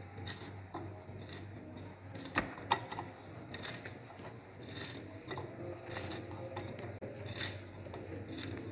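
A hand gimlet twisting into a wooden board, its screw tip and twisted shank cutting chips from the wood with quiet, irregular creaks, clicks and scrapes.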